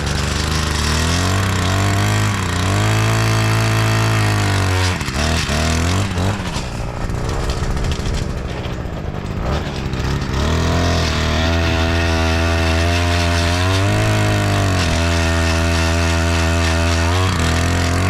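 Gas-powered earth auger's small two-stroke engine revving hard as it bores a post hole. It runs at speed for a few seconds, drops back, then revs up again for a longer stretch before easing off near the end.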